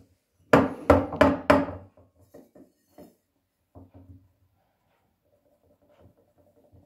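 Stainless steel milk pitcher of frothed milk knocked on a wooden counter four times in quick succession, each knock ringing briefly: tapping to burst bubbles in the milk foam before pouring. Fainter knocks follow as the pitchers are handled on the wood.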